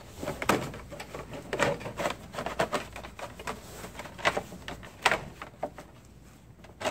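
Hard plastic battery cover being slid down around a car battery and pressed into place: a run of irregular plastic knocks, scrapes and clicks.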